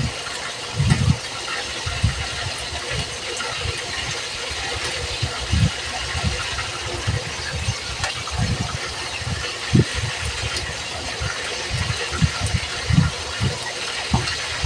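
Yard-long beans snapped by hand into short pieces: light snaps and irregular low thumps over a steady, engine-like running noise.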